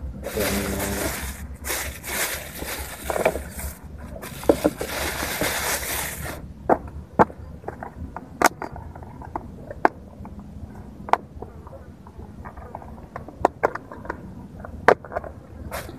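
Plastic bag rustling and crinkling as it is untied and opened, in two stretches over the first six seconds. After that, scattered sharp clicks and taps of a plastic food container being handled.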